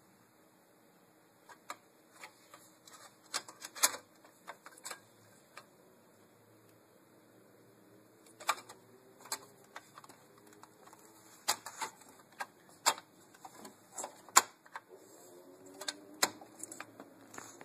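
Irregular sharp clicks and light knocks, a cluster of them about three to five seconds in and another spread from about eight seconds to near the end.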